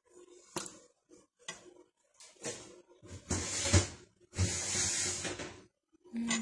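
Kitchen cookware and utensils being handled: two sharp clicks, then several longer rushing, scraping noises lasting up to about a second each. A short low tone comes at the very end.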